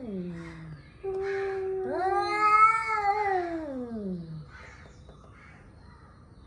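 Two male cats yowling at each other in a standoff before a fight. A falling yowl tails off at the start. About a second in, a steady held yowl begins and is overlapped by a louder one that swells and then slides down in pitch, dying away a little past the middle.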